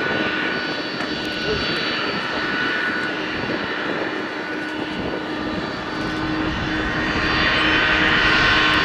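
Boeing KC-46A Pegasus tanker's two Pratt & Whitney turbofan engines running at taxi power: a steady jet whine with several held tones, growing louder near the end.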